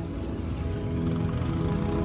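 Background music with steady held notes.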